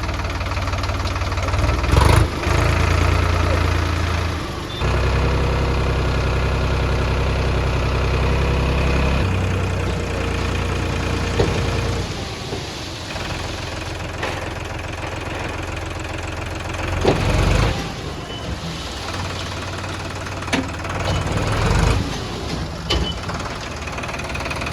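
Heavy diesel machinery engines running, the backhoe loader and tractor at work, with the engine note rising under load for a few seconds at a time. A few sharp knocks fall in between, near the start and twice in the second half.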